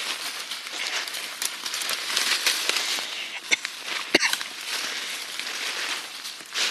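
Footsteps crunching through dry leaves and brush, with scattered cracks and one sharp snap about four seconds in, like a stick breaking underfoot.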